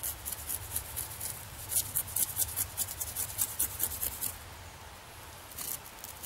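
Knife blade scraping dry ivy aerial rootlets off a tree trunk in quick rasping strokes, about four a second. The scraping stops about four seconds in, and a short burst of strokes follows near the end.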